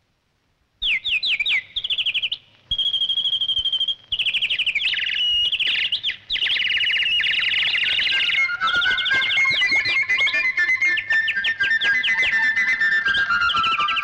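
Cartoon nightingales singing together, the real bird and the golden mechanical one, starting about a second in: rapid runs of high falling chirps and a held whistle-like note. About eight seconds in, a second, lower warbling line joins under the chirping.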